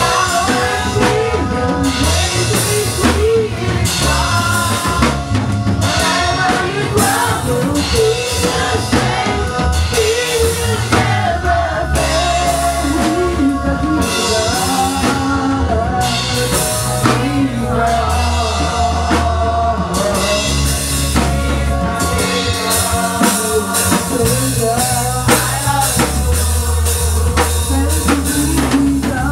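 Live church choir singing an upbeat praise song with a lead singer on a microphone, backed by a drum kit and a steady low bass line.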